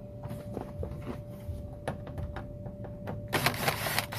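Light clicks and knocks of hand tools and screws being worked on a car's interior door trim panel, then a rattling, scraping burst lasting about a second near the end. A faint steady hum runs underneath.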